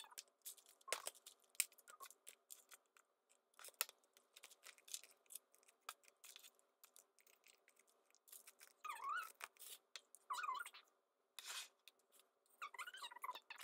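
Faint, scattered clicks and rustles of plastic fidget toys being handled and rummaged through in a clear plastic storage box.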